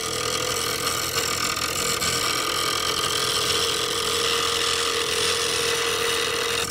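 Bench grinder wheel sharpening a steel lathe gouge, held freehand to touch up its cutting edge. The steady grinding hiss rides over a steady hum from the grinder.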